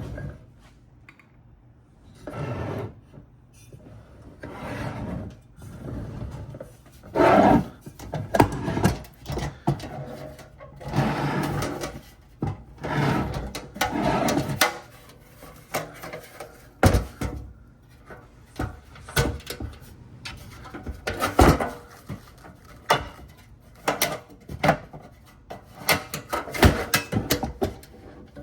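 Irregular knocks, clicks, rattles and scrapes of a pressed-steel toy truck and its parts being handled and worked on a bench.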